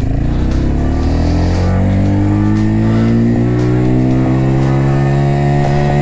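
Italika Blackbird's 250 cc air-cooled single-cylinder engine pulling the motorcycle up to about 40 km/h for a braking test. The pitch rises for about two seconds, then holds steady.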